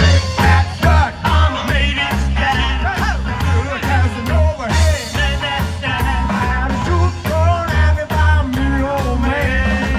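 Live band playing a rockabilly song, with a steady drum beat, bass and singing.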